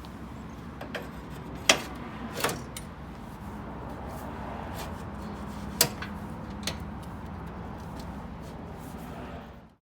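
A few sharp clicks and knocks of metal parts as the collars and new differential gear of an Ariens snowblower are worked onto the shaft. Two of the knocks stand out as loudest. A steady background noise runs underneath and cuts off abruptly near the end.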